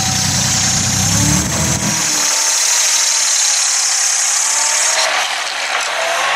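Compact wheel loader's engine running, its pitch rising and falling with the throttle, under a steady high hiss. The deep engine tone drops away abruptly about two seconds in.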